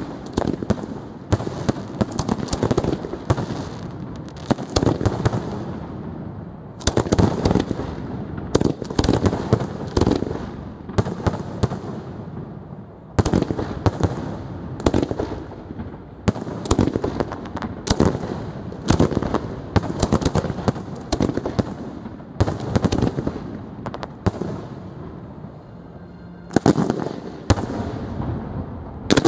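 Aerial fireworks shells bursting in a professional display: many sharp reports in quick, irregular succession, several a second at times, with a brief lull about 13 seconds in.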